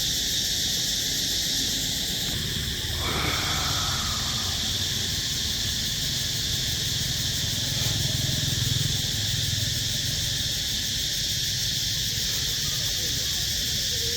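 Steady high-pitched insect chorus, with a short sound falling in pitch about three seconds in.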